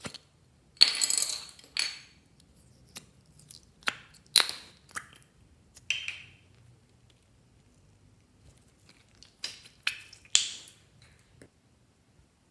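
Slime being squished and stretched by hand, with irregular sharp pops, clicks and short crackly squelches, the loudest about a second in and again near the end.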